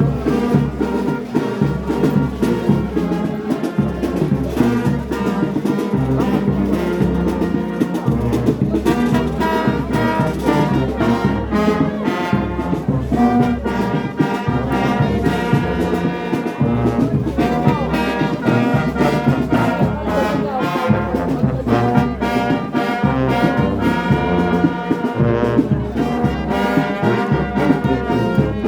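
Brass band playing: trombones and trumpets together over a steady beat in the bass.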